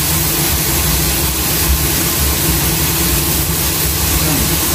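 Kitchen range hood extractor fan running with a steady hum and rush of air over pork frying in a wok.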